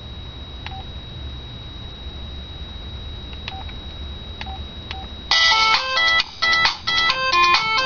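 A few faint key clicks and beeps from a cell phone, then about five seconds in a polyphonic ringtone melody starts playing loudly through the phone's small speaker, in quick changing electronic notes.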